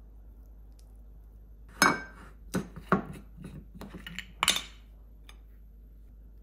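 Kitchen clatter of tableware and glass bottles being handled on a countertop: a handful of sharp knocks and clinks over about three seconds, the loudest near the start and the end, some with a short ring.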